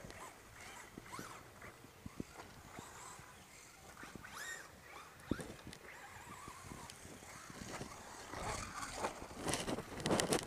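Radio-controlled car driving on a dirt track, heard close up: its motor whines up and down with the throttle over tyre and dirt noise and knocks from bumps. It gets rougher and louder with clattering jolts near the end.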